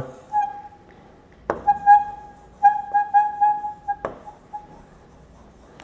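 Pen squeaking on the glass of an interactive display board while writing: a thin, steady squeak in short strokes for about four seconds, with a sharp tap about a second and a half in and another near the end of the squeaking.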